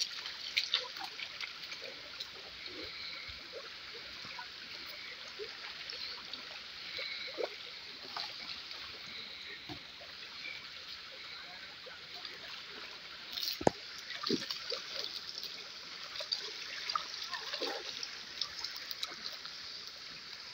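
Shallow river water running over a rocky bed, with small splashes and dribbles as feet are scrubbed with a stone in the water. One sharp knock a little past halfway.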